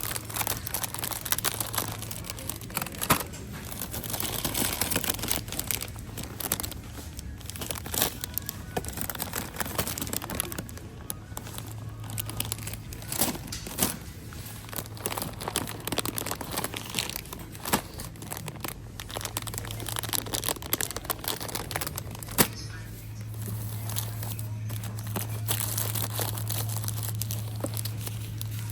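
Plastic snack packaging, chip bags and candy wrappers, crinkling and crackling as packs are handled and put into a shopping cart, with many short sharp crackles and occasional knocks over a steady low hum.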